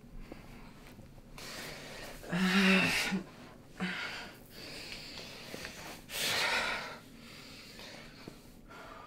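A man breathing heavily in distress: loud, rough exhales, the first with a brief voiced groan in it, a shorter one near four seconds, and another about six seconds in.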